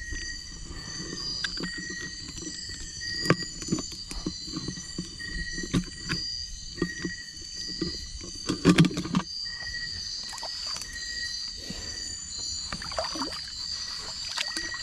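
Water sloshing and splashing in irregular swishes and knocks, with a louder splash about nine seconds in, over the steady pulsing chirp of night insects.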